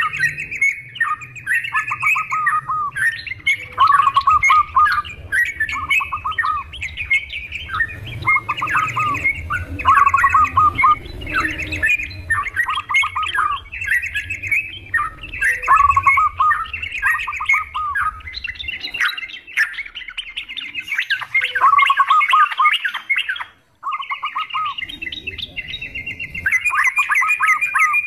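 Yellow-vented bulbuls (trucukan) calling: short, rapid chattering phrases repeated over and over, with a momentary gap about three-quarters of the way through.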